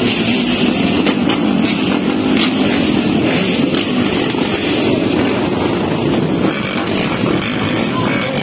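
Several motocross dirt bike engines running at low revs close by as the bikes are ridden slowly past one after another, their sounds overlapping into a steady, loud engine noise.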